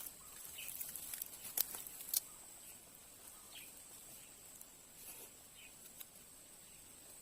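Rural outdoor ambience: a steady high-pitched insect drone, with faint short chirps now and then. Sharp clicks and handling noises sound in the first two seconds.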